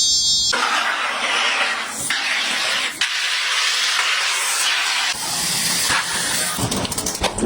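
A steady hiss in several stretches of one to two seconds each, with abrupt changes between them; near the end, a quick run of sharp clicks.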